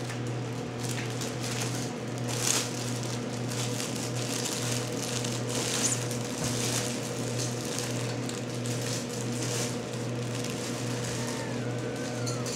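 Kittens playing: scattered light taps and rustles over a steady low hum.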